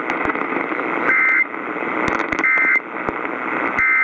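Emergency Alert System end-of-message data bursts sounding three times, about a second apart, each a short buzzy two-tone chirp, closing the tornado warning. Underneath is a steady radio static hiss with crackles.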